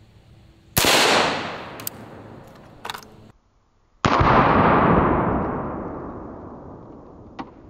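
AR-15 rifle firing 5.56 rounds: a sharp shot about a second in that echoes away, then, after a sudden cut to silence, another shot report about four seconds in with a long echo fading over about three seconds.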